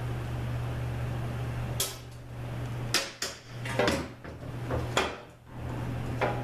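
About six sharp metallic knocks and clatters, spread out one by one, as the oil pan of a Subaru 4AT automatic transmission, sealed with silicone rather than a gasket, is pried loose and handled.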